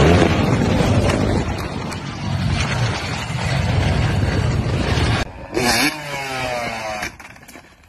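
Several dirt bike and ATV engines running and revving loudly and roughly. About five seconds in the sound breaks off, and near the end a single engine's pitch falls away as it fades.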